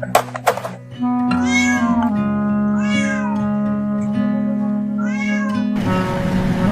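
A cat meowing three times, each meow rising then falling in pitch, over background music with steady held notes. Two sharp clicks come just before the meows, and a rushing noise sets in near the end.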